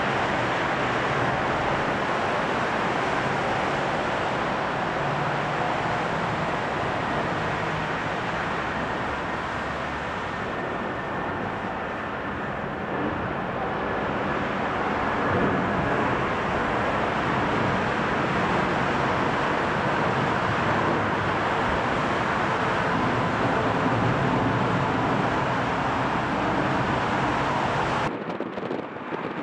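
Twin jet engines of an Airbus A319 at takeoff climb power, a steady roar with a faint whine on top as the airliner climbs away. The roar cuts off suddenly near the end.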